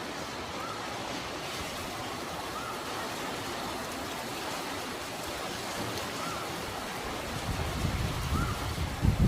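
Heavy rain falling: a steady, even hiss, with a faint short chirp repeating every couple of seconds. Near the end, a low rumble of wind buffeting the microphone builds and grows louder.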